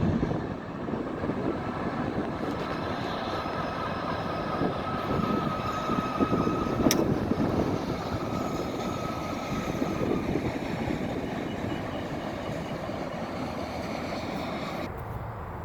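A train running past with a steady rumble and a high, steady wheel squeal for several seconds, and one sharp click about halfway through.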